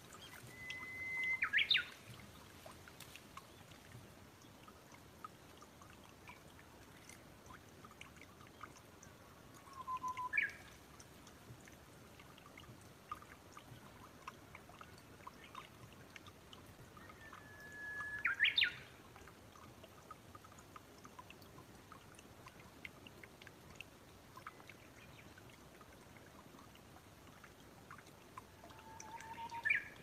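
Brown-eared bulbul calling four times, about eight to ten seconds apart: each call a short whistled note that breaks into a sharp, higher squeal. A faint steady trickle of water runs underneath.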